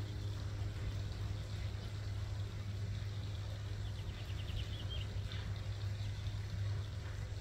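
A steady low mechanical hum, like a motor running nearby, with a brief high, rapid chitter about four seconds in.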